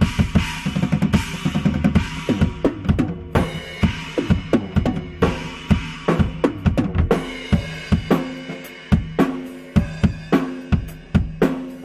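Drum kit played solo: a busy run of fast snare, bass drum and cymbal hits that thins out after about three seconds into sparser, spaced strikes with ringing tom tones.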